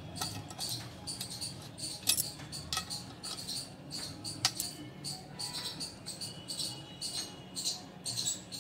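Colocasia (arbi) leaves, spread with a dal paste, rustling and crackling as they are folded by hand on a steel plate, with a few sharp clicks. Under it a steady high chirping repeats about three times a second.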